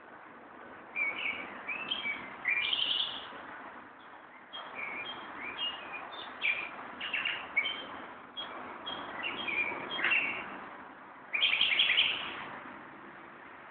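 Songbirds singing: phrases of quick chirps and whistles with short pauses between them, over a steady background hiss. The loudest burst comes near the end.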